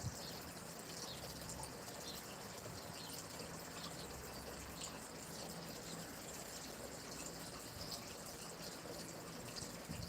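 A stream flowing: a steady, even rush of running water.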